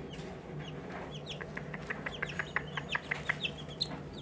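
Young chicks peeping: many short, high cheeps, several a second, from a small brood of two- to four-week-old chicks.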